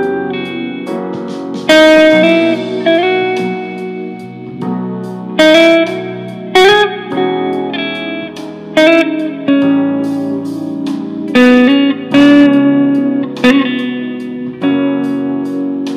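Archtop guitar played solo: chords and single melody notes plucked and left to ring, with several harder-struck chords along the way.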